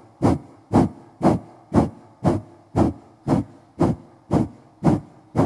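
Kapalabhati breathing: a woman's short, forceful exhalations driven by the abdominal muscles, about two a second, each a sharp puff of air through the nose followed by a passive inhale.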